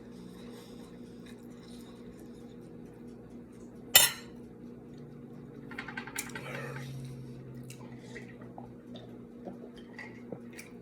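Cutlery against a plate while eating: one sharp, loud clink about four seconds in, then softer clattering and a few light clicks.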